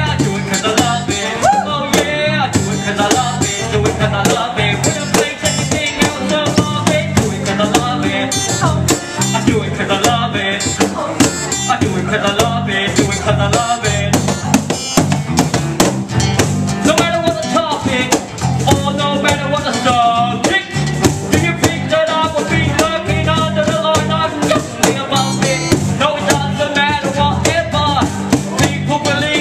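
Live acoustic band playing: strummed acoustic guitar, bass guitar and a hand-played cajon keeping a steady beat, with a rapper's vocals through a microphone over the top.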